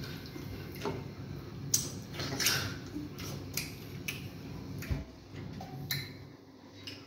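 Close-up eating sounds from hand-eating fufu and vegetable soup: irregular wet clicks and smacks of chewing and of fingers working the food, several to the second at times, with pauses between.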